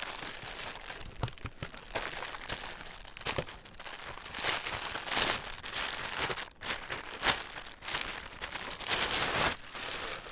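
Clear plastic bag crinkling in irregular bursts as a wrapped baseball glove is pulled out and handled through it, with louder bursts around the middle and near the end.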